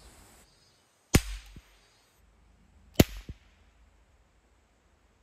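Two sharp bangs about two seconds apart, each followed by a short echo: noise made to scare off animals around the campsite.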